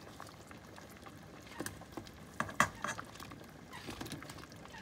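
Okra pods tipped from a bowl into a pot of sinigang broth, dropping onto the vegetables and pot: a handful of short, light knocks and clinks, most of them between about one and a half and three seconds in.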